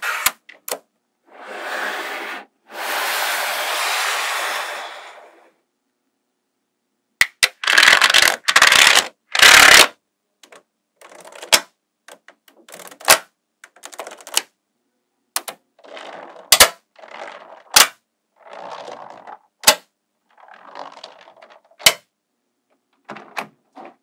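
Small magnetic balls clicking and snapping together, with a couple of long rattling stretches in the first few seconds and dense loud bursts of rattle a little before halfway. Through the second half come many single sharp clicks and short rattles.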